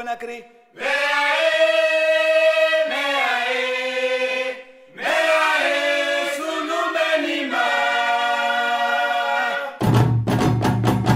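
Background music: a West African song with group singing in long held phrases, broken by two short pauses. Drums and percussion come in near the end.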